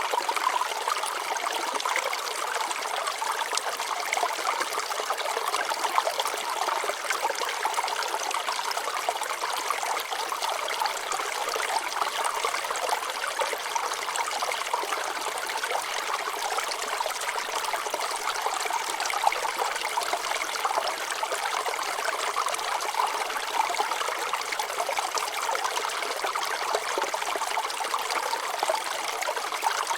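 A shallow stream of water flowing and trickling over rocks, a steady babbling rush with fine splashing detail.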